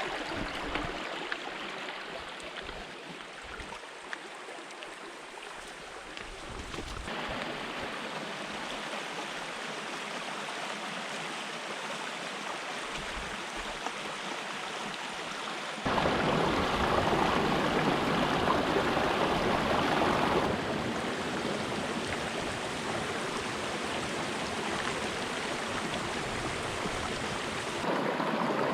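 Rushing water of the Peshtigo River's rapids, a steady noise with no pattern. It jumps abruptly louder about a third of the way in and again about sixteen seconds in, then drops back somewhat a few seconds later.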